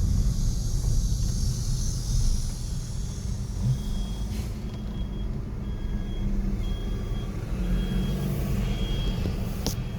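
City street traffic rumbling steadily, with a truck's reversing alarm beeping at an even pace from about four seconds in.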